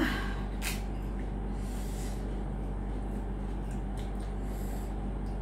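A short, sharp sniff about half a second in and a softer breath a second later, from someone whose nose is running from eating very hot chilli-filled pani puri, over a steady low hum.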